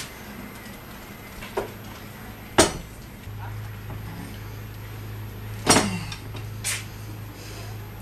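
Lever-type hand tube bender bending copper tubing: a few sharp metal knocks and clicks as the long handles are pulled. The two loudest come about two and a half and six seconds in, some with a short falling squeak.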